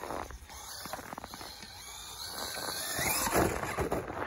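Traxxas E-Revo 2.0 electric RC truck driving over snow: its motor whines and rises in pitch about three seconds in as it speeds up, over the scrabbling of its tyres on snow and ice.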